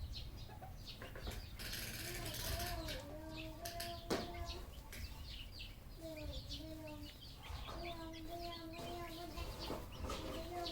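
Red junglefowl (wild chickens) giving several drawn-out, wavering calls of about a second each, among wing flaps, rustling and sharp clicks. A single loud click about four seconds in is the loudest sound.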